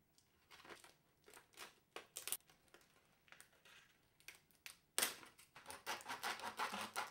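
Stiff plastic clamshell blister pack crinkling and crackling as it is cut open. Scattered crackles at first, then a dense run of crackling from about five seconds in.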